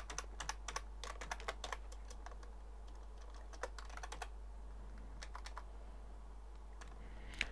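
Typing on a computer keyboard: a quick run of key clicks in the first two seconds, then scattered single taps, over a steady low hum.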